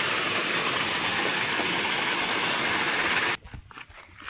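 Waterfall rushing, a steady loud rush of falling water that stops abruptly a little over three seconds in, leaving a few faint knocks in quiet.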